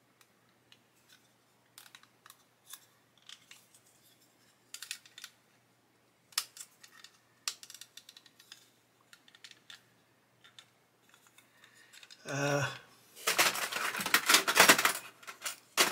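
Small plastic clicks and taps as spring clamps are fitted and pressed onto a plastic model kit part. Near the end there is a louder clatter of about two seconds as the clamped part and its clamps are handled and knocked together.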